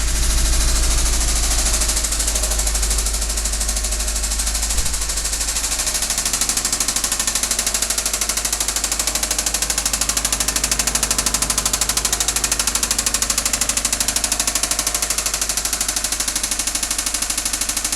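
Subaru WRX turbocharged flat-four engine running with an even, rapid knock. The uploader takes it for rod knock: a worn connecting-rod bearing in a failing engine.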